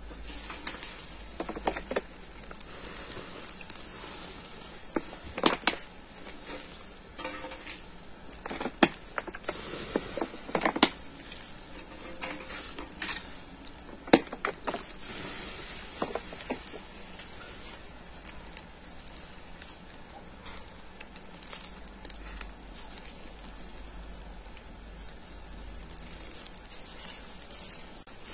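Shashlik sizzling over hot charcoal in a metal mangal: a steady hiss of fat cooking, with scattered sharp pops and clicks, most of them in the first half.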